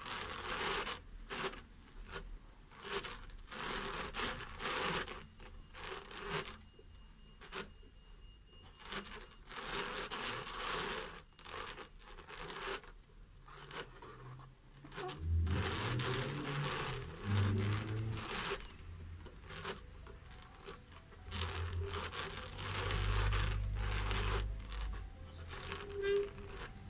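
Hand-cranked drum carder being turned, its carding teeth pulling silk and wool fibre onto the drum: a rough, irregular rasping in repeated strokes, with a few low thumps in the second half.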